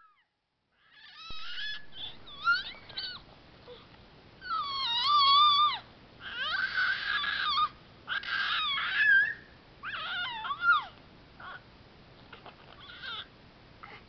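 A five-month-old baby making high-pitched squealing vocal noises: a series of separate squeals and whines that slide up and down in pitch, some quite loud, fading to fainter short sounds after about eleven seconds.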